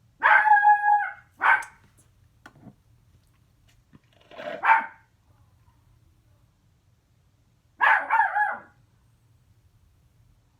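A dog barking in four short bouts spread over several seconds, with quiet between them.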